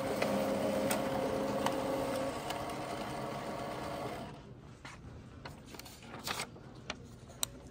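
A printer running steadily for about four seconds, then stopping, followed by a few light clicks.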